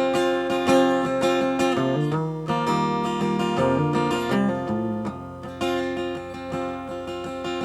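Acoustic guitar strummed in an instrumental passage between sung lines, with chord changes about every second or two.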